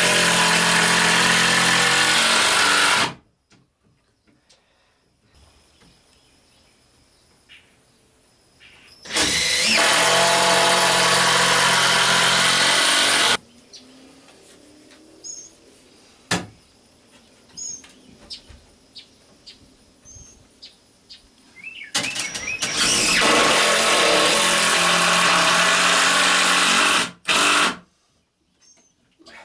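Cordless drill driving screws into plywood bulkheads, running at a steady pitch under load in three spells of about three to four seconds, with a short burst near the end. Between spells, a few light knocks and faint bird chirps.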